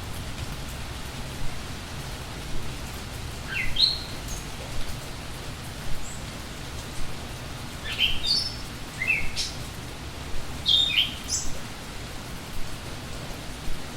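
Steady rain, with songbirds chirping over it: a short rising call about four seconds in, then a cluster of quick calls between about eight and eleven and a half seconds.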